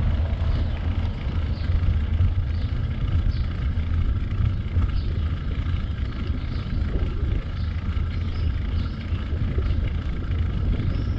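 Steady low rumble of wind buffeting the microphone while riding a bicycle, with road noise underneath.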